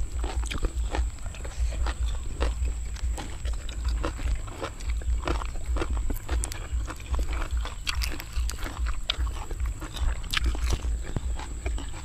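Close-miked chewing and crunching of food, papaya salad and raw long beans, with many short crackly crunches throughout.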